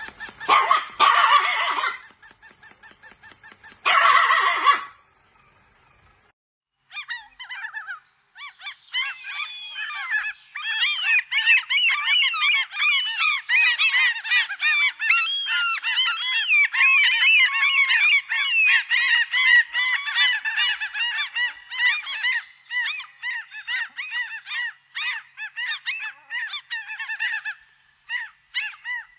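A flock of birds calling over one another in a dense chorus of short calls that thins out near the end. It is preceded by two loud, harsh calls in the first five seconds.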